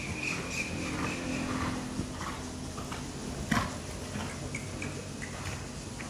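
Horse's hoofbeats on arena footing while it is worked on a lunge line, as soft irregular thuds. A thin high steady tone runs through the first two seconds, and a single sharp crack comes about three and a half seconds in.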